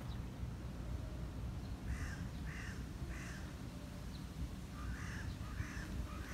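A crow cawing: two series of three short calls, about two seconds in and again about five seconds in, over a steady low background rumble.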